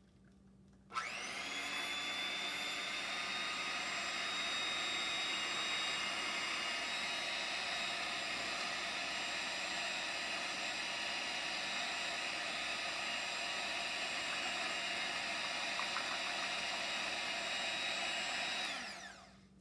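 Electric hand mixer switched on about a second in, its motor whine rising to speed, then running steadily with its beater churning thick blue acrylic paint in a plastic cup, and slowing to a stop near the end.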